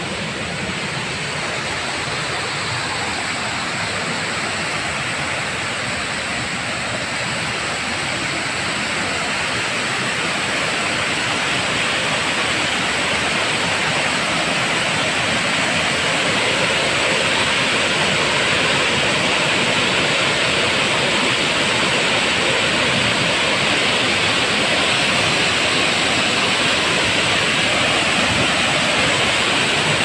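Steady rushing of a waterfall, about 10 metres high, falling water heard as an even noise. It grows a little louder about halfway through and holds there.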